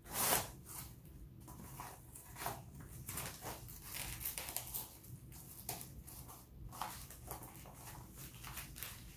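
Cardboard plate edged with duct tape sliding into the fabric pocket of a plate carrier, giving a run of irregular scraping and rustling sounds, the loudest right at the start.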